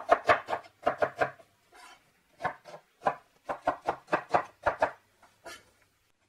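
Chef's knife dicing an onion on a wooden cutting board: quick knocks of the blade on the board in short runs, with brief pauses between them.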